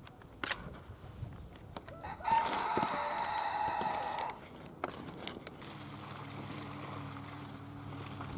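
A rooster crows once, about two seconds in, one long call lasting about two seconds, with a few soft knocks around it. From a little past halfway a steady low engine hum sets in, a utility vehicle idling.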